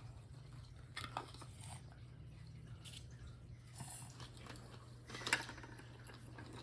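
Wooden toy train track pieces being handled and fitted together: faint, scattered clicks and knocks of wood on wood, a few times.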